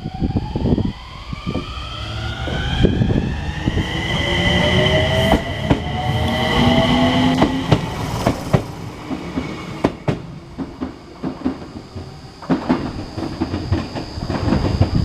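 Enshu Railway 2000 series electric train accelerating: its inverter and traction motors whine in several rising tones over the first eight seconds or so. From about ten seconds in, the wheels clack over rail joints.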